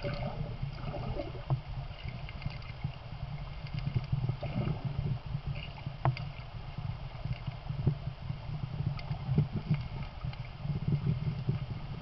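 Muffled underwater sound of a river: a steady low rumble of moving water with scattered small clicks and ticks.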